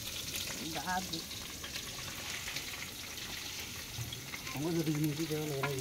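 Steady hiss with fine crackling from open wood-fired cooking hearths, pots of greens simmering on them.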